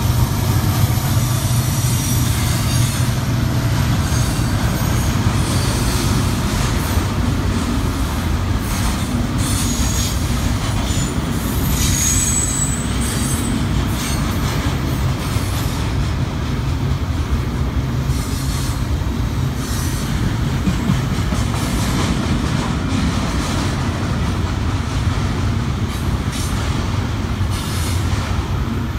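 Union Pacific freight train passing: a trailing diesel locomotive's engine running with a deep rumble at the start, then the steady rolling of double-stack container well cars over the rails. Brief high-pitched wheel squeals come about ten to thirteen seconds in.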